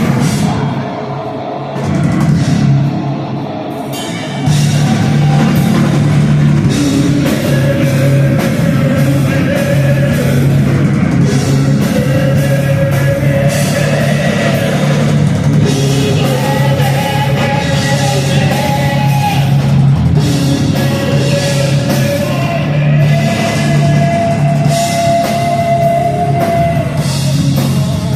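Heavy rock band playing live, with a drum kit. It is quieter and sparser at first, and the full band comes in loud about four seconds in.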